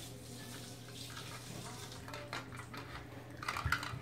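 Quiet room with a low steady hum. From about halfway through come faint rustles and soft taps of dolls being handled and moved, a little louder near the end.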